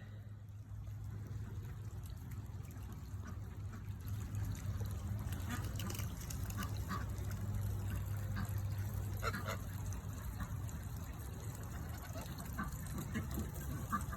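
Domestic geese honking: a scattering of short calls, starting about five seconds in and clustering again near the end, over a steady low rush of running water.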